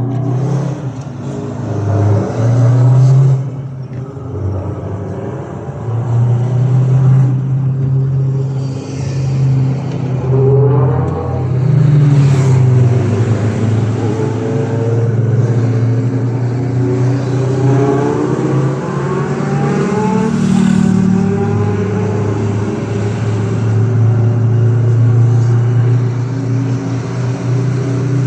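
Engine of a vintage Sultana coach bus driving ahead in traffic, heard from a car following behind. A steady low drone, with the engine note climbing in pitch a few times as the bus accelerates.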